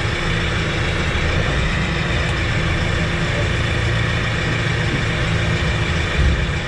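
Sherp 10x10 all-terrain vehicle's engine running steadily at low revs.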